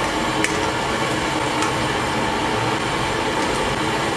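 Steady rushing of a gas stove burner under a large pan of curry. A few light metallic clinks sound about half a second and a second and a half in, as fried fish pieces are slid off a steel plate into the aluminium kadai.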